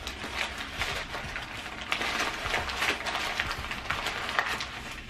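Paper fast-food sandwich wrapper crinkling and rustling as it is handled, a dense run of irregular crackles.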